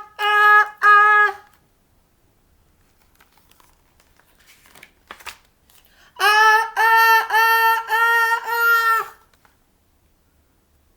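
A woman's voice acting out the build-up to a sneeze: short, high, steady 'ah... ah... ah' sounds, three at the start and a longer run of five from about six seconds in. A faint paper rustle comes in between.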